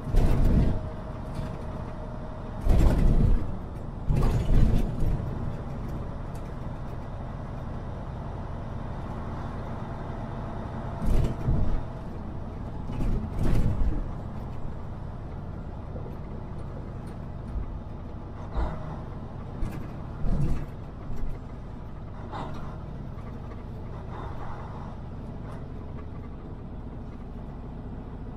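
Semi truck driving, heard inside the cab: a steady low engine and road drone, broken by a string of short loud knocks and rattles, several in the first five seconds and more at intervals later on.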